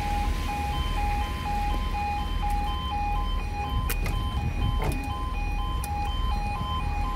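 Level crossing audible warning alarm sounding while the barriers are down: an electronic two-note beep alternating low and high, about twice a second, over a low rumble.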